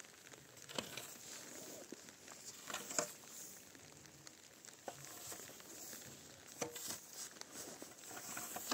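Faint, irregular taps and knocks, a few seconds apart, over a steady soft hiss.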